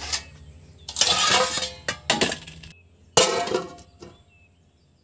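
Dishes clattering as the bowl of rested dough is covered with a plate: a scrape and a couple of knocks, then one sharp clink a little after three seconds.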